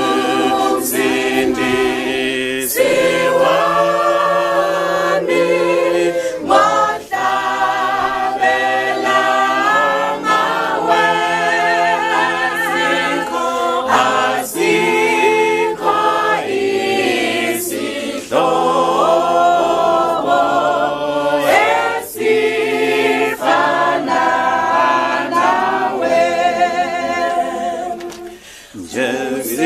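A small church congregation of women and children singing a hymn a cappella, several voices in harmony holding long notes. The singing breaks off briefly near the end, then resumes.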